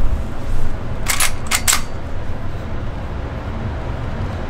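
Three quick metallic clicks about a second in as the Big Horn Armory Model 89 lever-action rifle is readied to fire, over a steady low rumble.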